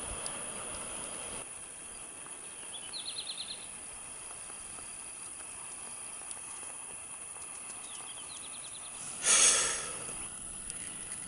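Skis hissing over spring snow for the first second or so, then a quieter outdoor background in which a small bird sings two short, fast trills. About nine seconds in, a brief loud rush of noise.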